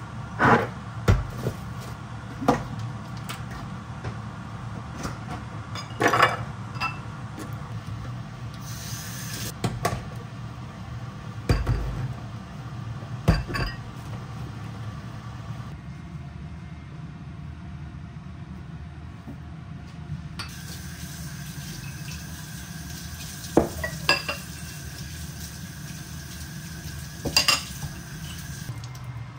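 Dishes being washed by hand in a stainless steel sink: plates, cups and utensils clink and knock against each other and the sink every few seconds, over a steady low hum. Late on the tap runs for several seconds as a cup is rinsed.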